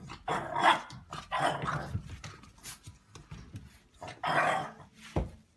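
A puppy barking: about three short, high barks with quieter yips between them, then a sharp knock near the end.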